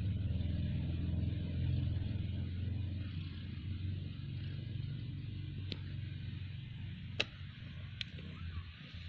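Mother cat purring steadily as she nursess her kittens, a low, even, pulsing rumble that eases slowly. Three sharp clicks come in the last few seconds, the middle one loudest.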